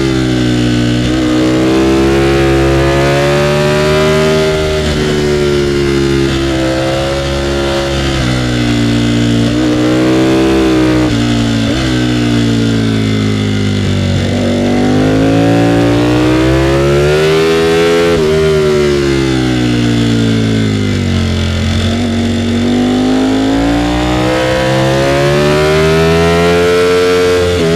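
Ducati Panigale V4R's 998 cc V4 engine under riding load, revs climbing and falling repeatedly as the bike accelerates and eases off, with several sudden steps in pitch at gear changes.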